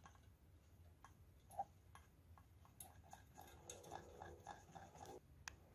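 Near silence, with faint scattered ticks of a spoon working blended litchi pulp in a plastic strainer over a steel bowl.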